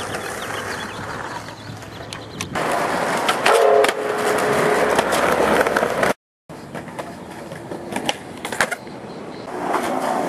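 Skateboard wheels rolling on pavement with sharp clacks of the board popping and landing. A louder scrape with a short tone in it comes about three and a half seconds in, and the sound cuts out for a moment about six seconds in before the rolling and clacks go on.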